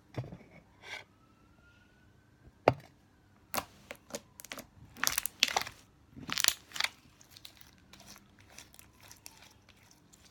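Sticky, putty-like slime being pressed and squeezed by hand, giving irregular clicks, crackles and air pops. The sharpest pop comes a little under three seconds in.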